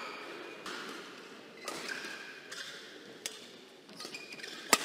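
Badminton rally: a racket strikes the shuttlecock sharply about once a second, about five times, the hardest hit near the end, echoing in a large hall.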